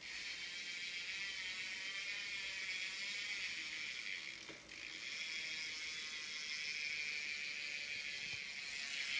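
BMX rear hub freewheel ratcheting in a fast, steady buzz as the wheel or cranks freewheel. It dips briefly about halfway through, then picks up again.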